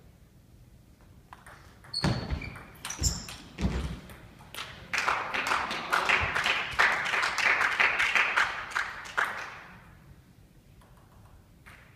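Table tennis ball hits on bats and the table, a few sharp knocks echoing in a large sports hall, followed about five seconds in by a dense run of rapid clicks lasting about four seconds.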